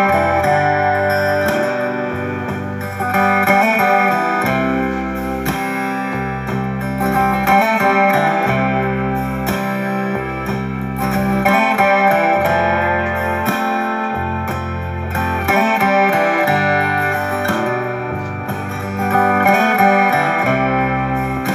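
Instrumental background music led by guitar, with a steady bass line under it.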